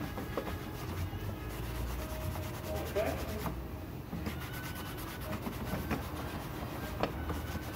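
A hand-held sanding pad rubbed in repeated, irregular strokes over the beaver-felt crown of a western hat, a dry scratchy rubbing. A low steady hum sits underneath.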